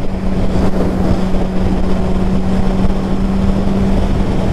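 Motorcycle engine running at a steady cruising speed, holding one even drone, with wind rushing over the microphone.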